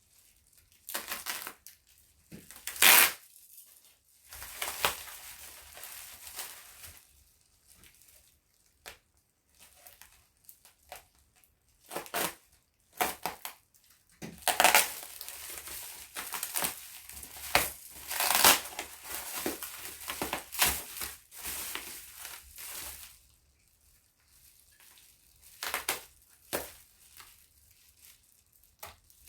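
Packing wrap being crumpled, crinkled and torn in irregular bursts as a heavily wrapped crystal is unwrapped by hand.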